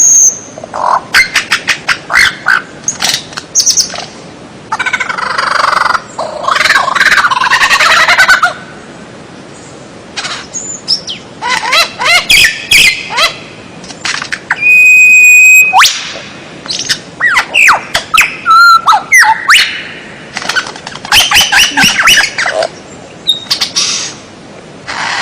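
Songbird song: a varied medley of fast chirps, dense trills and sweeping whistled notes in separate phrases, with one long steady whistle a little past the middle.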